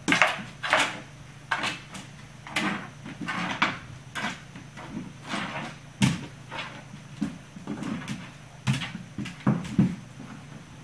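An ice cube knocking and skidding across a hardwood floor as a puppy bats it with its paws, with paws scrabbling on the wood. Irregular knocks and short scrapes, about two a second.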